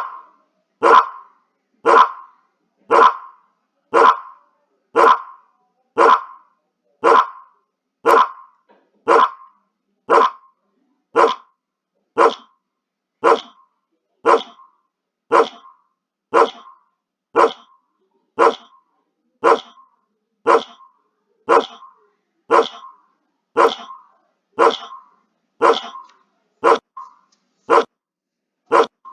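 A recorded dog-bark sound effect played on a loop by an mBlock program, one identical short bark about every second.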